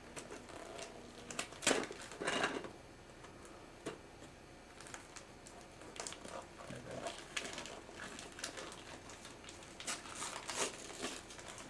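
Gift wrapping paper being torn and crinkled by a small child's hands as a present is unwrapped: irregular rustling and ripping, loudest about two seconds in.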